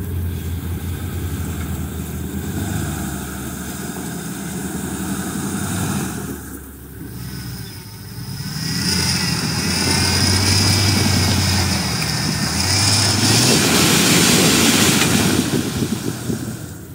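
Off-road 4x4's engine working on rough ground, its pitch rising and falling. It drops back briefly about six seconds in, then runs louder with a high whine until it falls away suddenly near the end.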